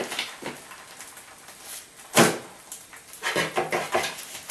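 Handling noise as a thin omelette is turned over on a parchment-lined metal baking tray. There is one sharp knock about two seconds in, then a run of shorter taps and paper rustles.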